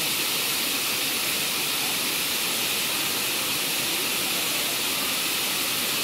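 Waterfall pouring down a rock face into its pool: a steady, even rush of falling water, mostly high and hissing.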